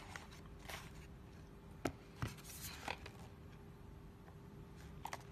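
Quiet handling of a cardboard packaging box: a few soft clicks, taps and brief scrapes, with a faint steady hum underneath.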